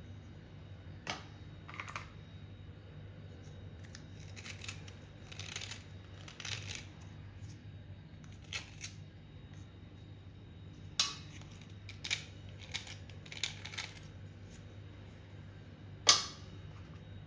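Snap-off utility-knife blade scraping a water-soaked white block in short, separate strokes, shavings crumbling off. A sharp click near the end is the loudest sound.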